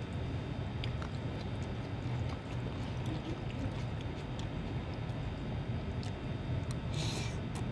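Faint clicks of a metal fork and spoon against a plastic food container as noodles are lifted, with a brief scrape about seven seconds in, over a steady low room hum.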